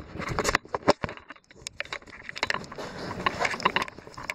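Footsteps and handling noise as someone walks with the camera: an irregular scatter of scuffs, clicks and knocks.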